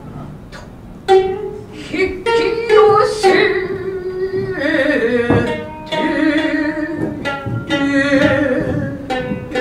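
Gidayu-style joruri music: a shamisen plays sharply struck, plucked notes while the chanter holds long, slowly wavering sung lines. The music starts about a second in.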